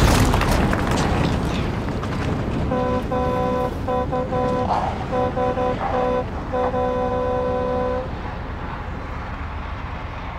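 A vehicle on the move, with steady engine and road noise. From about three seconds in, a vehicle horn honks for about five seconds: a long blast, a run of short ones and another long blast. The noise is a little quieter after the honking stops.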